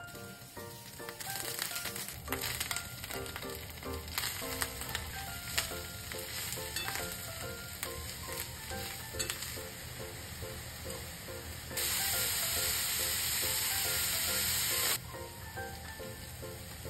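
Aromatics and then shimeji and maitake mushrooms sizzling in oil in a frying pan as they are stir-fried, with frequent clicks of the utensils against the pan. A much louder, steady sizzle starts about twelve seconds in and cuts off suddenly three seconds later.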